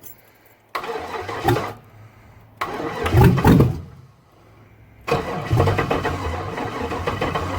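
Swapped LS V8 engine being cranked over by its starter in three separate attempts to start it, the last one the longest.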